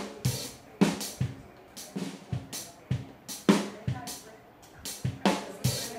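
Music with a drum-kit beat: kick and snare hits recurring about every second under a pitched accompaniment.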